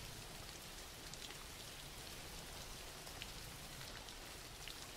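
Faint, steady rain from a rain background track, with small scattered drop ticks.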